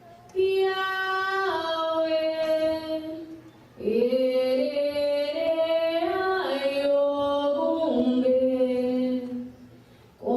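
Unaccompanied female singing of an Afro-Brazilian chant in two long phrases of held notes stepping down in pitch. The second phrase begins about four seconds in and stops near the end.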